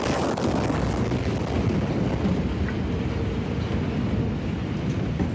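Rumbling roar of the Beirut port explosion, picked up on a phone just after the blast wave hits: a dense, steady rumble with a few faint clicks and rattles in it.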